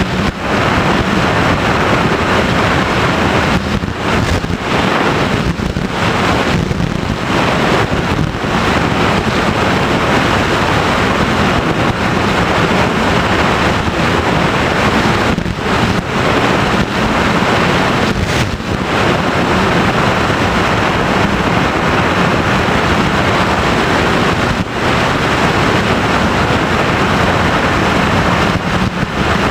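Steady rush of wind over an FPV model plane's onboard camera microphone, mixed with the drone of its motor and propeller, with a few brief dips.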